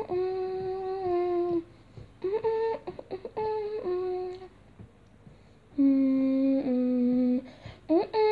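A person humming a tune in held notes that step up and down in pitch, with brief sliding swoops between phrases. There is a pause in the middle, and the loudest, lowest notes come after it.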